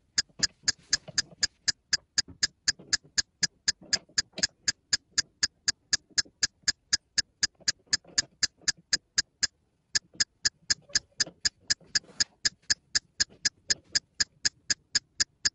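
Even, clock-like ticking, about four sharp ticks a second, stopping for a moment a little past the middle and then going on. Faint scraping of plastic parts lies underneath.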